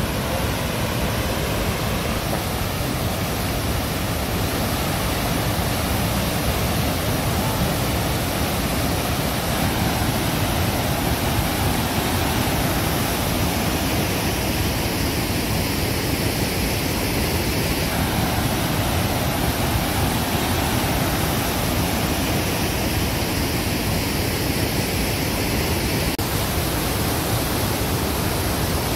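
Ristafallet, a large waterfall about 14 m high and 50 m wide, and the whitewater rapids below it: a steady, unbroken rush of falling water.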